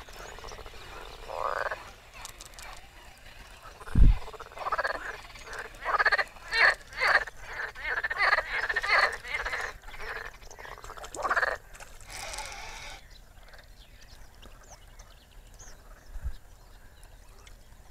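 Frogs croaking in a run of short repeated calls, about two a second at their busiest, dying away near the end. A single low thump about four seconds in is the loudest sound.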